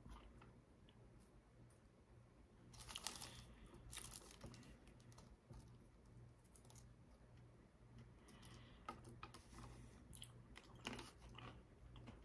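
Near quiet, with scattered faint crinkles and clicks from a foil snack wrapper and chocolate-coated biscuit sticks being handled and gathered into a bundle.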